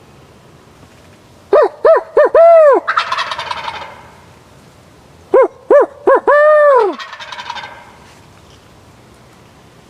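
Two loud calls about four seconds apart. Each is a few short hooting notes and a longer falling final note in the rhythm of a barred owl, followed at once by a wild turkey's rattling gobble, like a tom shock-gobbling at the hoot.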